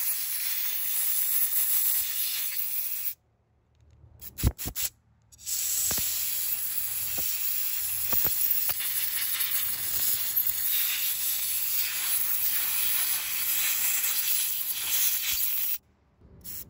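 Compressed-air blow gun hissing as it blows out and dries the passages of a chainsaw carburetor fresh from an ultrasonic bath: a blast of about three seconds, a short pause with a few small clicks, then a long blast of about ten seconds that cuts off near the end.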